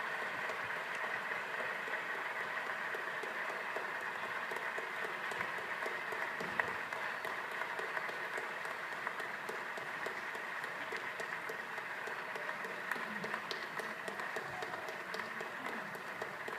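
Audience applauding: a steady, dense clatter of many hands clapping, easing off slightly near the end.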